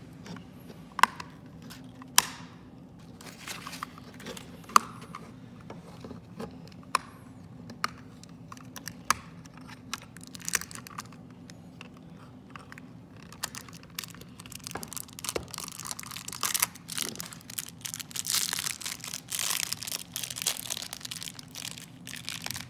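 A series of sharp, separate taps and clicks of hard plastic against a wooden table, then from about two-thirds through, steady crinkling and tearing as a foil-like plastic wrapper is pulled off a L.O.L. Surprise ball's layer.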